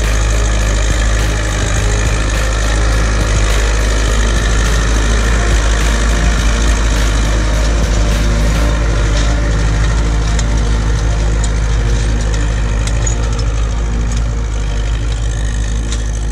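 Zetor 6911 tractor's four-cylinder diesel engine running steadily under load as it pulls a disc harrow through ploughed soil, with a constant deep rumble. It fades slightly near the end as the tractor pulls away.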